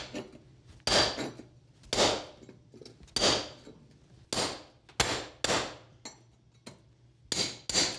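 Hammer striking a steel cold chisel about eight times, roughly a second apart, each blow a sharp metallic clink with a brief ring. The chisel is breaking out the old cement mortar joint between flagstones.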